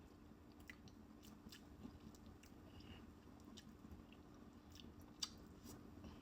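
Faint chewing and mouth clicks of someone eating close to the microphone, with one sharper click about five seconds in, over a faint steady hum.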